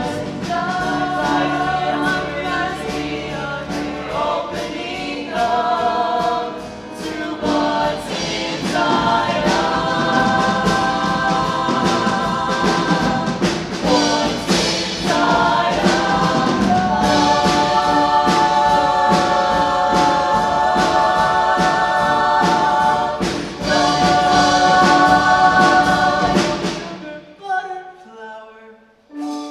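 A choir singing a musical-theatre number over a steady beat. The full chorus holds long chords near the end, then cuts off sharply about 27 seconds in, leaving a few soft notes.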